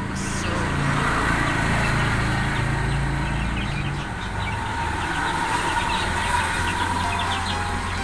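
Young chicks peeping in many short, high chirps over a steady low motor hum.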